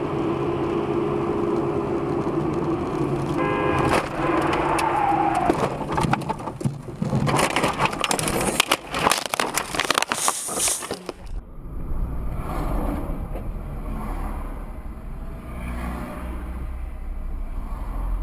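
Sound of a car in motion as a dashcam picks it up, with engine and road noise. About seven to eleven seconds in comes a stretch of loud crackling and knocking noise. It then gives way abruptly to a low, steady engine rumble.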